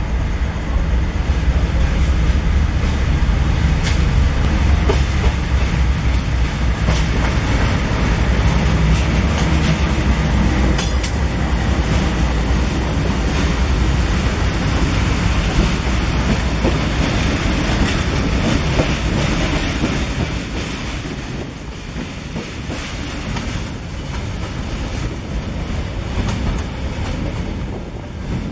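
A freight train headed by four diesel-electric locomotives passes close by, their engines making a loud, steady low rumble. After about twenty seconds this drops to the quieter rolling and clicking of empty gondola wagons on the rails.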